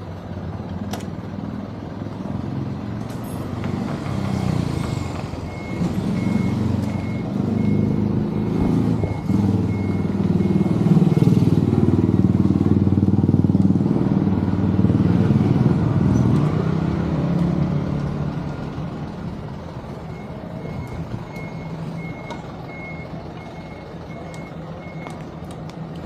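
A heavy motor vehicle's engine rumbling, building up to its loudest midway and then easing off. Over it, a high electronic beep repeats evenly in two runs, once early and once near the end.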